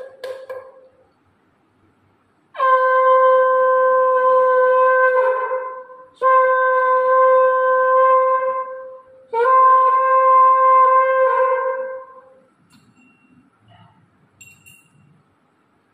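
Conch shell (shankha) blown by mouth: a brief first puff, then three long blasts, each a steady held note of about three seconds, the last two almost back to back. It is the conch blown to open the evening aarti.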